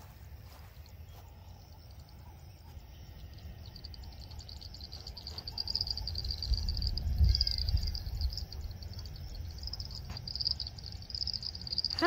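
Insects chirring in the grassland, a high, pulsing drone that sets in a few seconds in, over a low rumble that grows louder about halfway through.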